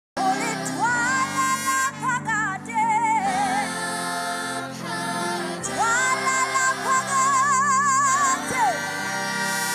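Music with a woman singing a slow melody in long held notes with vibrato over sustained chords, starting abruptly.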